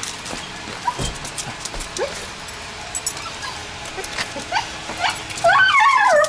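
A dog whimpering, with short rising yips scattered through, then a louder, wavering whine for about the last second.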